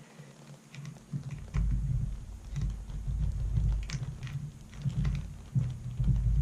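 Light metallic clicks and handling noise from a Mauser M-48 rifle bolt being forced by hand against its tight firing-pin spring during reassembly, over an uneven low rumble that starts about one and a half seconds in.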